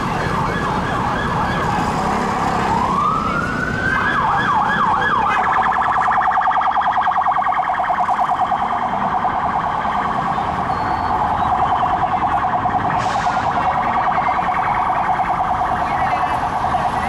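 Two-tone electronic siren of an unmarked Met Police Ford Mondeo on an emergency run: a rising wail about two and a half seconds in, a few quick yelp sweeps, then a very fast warble from about five seconds in, over road noise.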